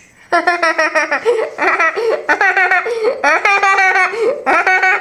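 Toy hamster's high-pitched, sped-up voice, squeaky and giggle-like, in short repeated phrases at a steady pitch; it starts suddenly just after the start.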